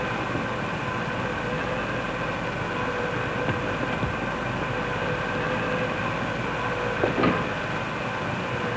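A steady mechanical hum with several constant tones over a rumbling noise, broken by a few short knocks, the loudest about seven seconds in.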